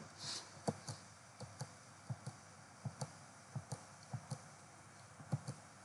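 Computer mouse clicking over and over, light sharp clicks at about three a second, some coming in quick pairs.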